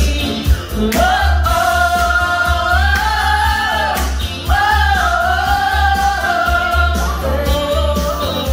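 Karaoke: a woman singing into a handheld microphone over a backing track with a steady bass beat, in two long phrases of held notes, the first starting about a second in and the second about halfway through.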